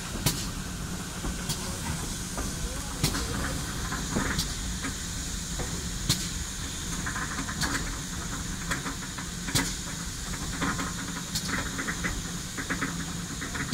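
Steam-hauled passenger train moving out of a station, heard from an open carriage window: a steady low rumble and steam hiss, with a sharp click about every second and a half.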